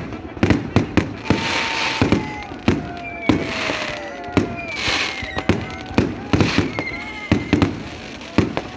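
Fireworks going off at a display: a rapid run of sharp bangs, about one or two a second, with crackling between the bursts.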